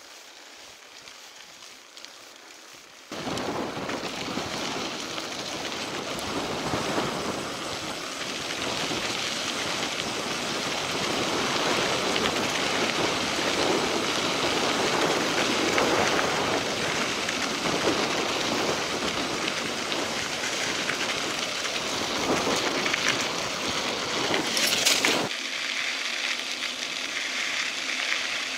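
Mountain bike rolling fast on a gravel dirt road, with wind rushing over the microphone and rumble from the tyres on the gravel. The noise jumps abruptly louder about three seconds in and drops back to a quieter hiss near the end.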